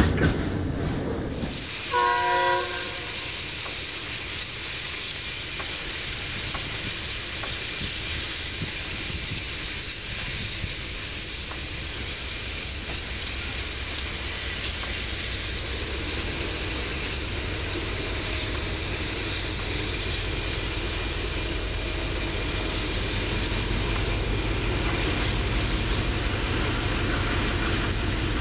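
Approaching DF4DD diesel locomotive hauling a coal freight train, with a short, broken horn sound about two seconds in. After that comes a steady rumble and hiss of the train coming closer, with the low engine rumble growing near the end.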